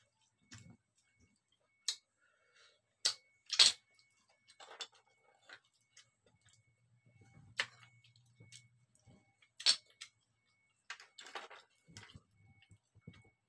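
Scallop shells clicking and clattering against each other and the plastic tray as they are handled with fingers and chopsticks: a string of sharp clicks, loudest a few seconds in and again just before ten seconds, with a short rustling scrape near the end.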